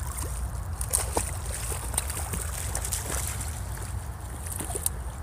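Shallow creek water trickling over rocks, with scattered small ticks and splashes, over a steady low rumble.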